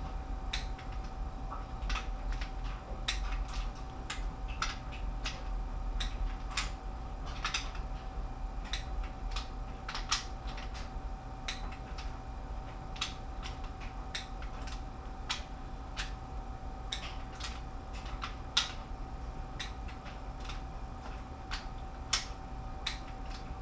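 Torque wrench and socket working the cylinder head bolts of a Jeep 3.7L V6: irregular sharp clicks, a few a second at times, over a steady faint hum. The bolts are being taken round to 20 ft-lb again and again because they do not yet hold that torque while the head is still seating.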